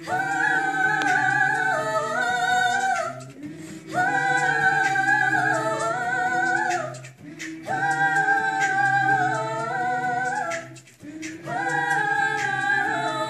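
A cappella vocal group singing in harmony: several voices holding chords over a steady low bass note, in repeated phrases of about three seconds with short breaks between them.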